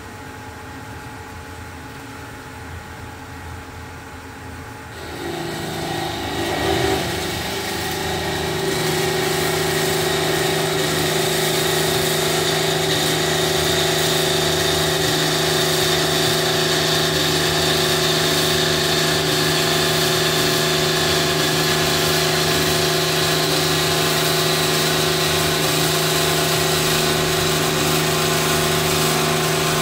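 BOMAR gravity-fed band saw for metal starting up about five seconds in, then running steadily with a hum and a steady high whine, its blade cutting metal as the saw arm lowers under its own weight.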